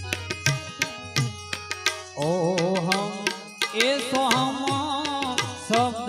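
Gujarati devotional bhajan music: tabla strokes throughout, joined about two seconds in by a wavering melody line with strong vibrato.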